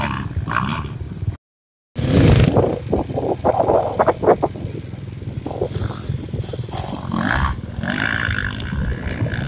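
Motocross bikes' engines running and revving on the track, mixed with wind buffeting the microphone, with a brief dropout about a second and a half in.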